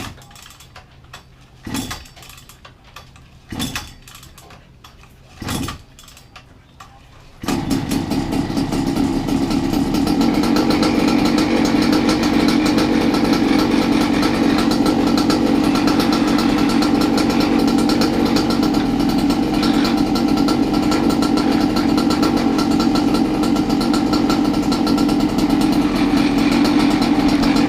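Goped scooter's R460 two-stroke engine with a Jetpro expansion pipe being pull-started: four short bursts about two seconds apart, then it catches about seven seconds in and runs steadily.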